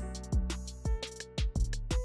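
Electronic music with a drum-machine beat: deep kick drum hits that drop in pitch about twice a second, sharp hi-hat and snare strokes, and short held melody notes.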